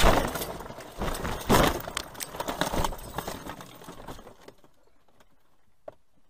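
A car crashing off the road through brush and trees, heard from inside the cabin: a heavy impact about a second and a half in, then crunching and rattling that dies away over the next few seconds as the car comes to rest.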